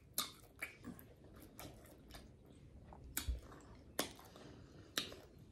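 Close-miked mouth sounds of someone chewing ramen noodles with Alfredo sauce: faint wet chewing with a series of sharp lip smacks and clicks, about one a second.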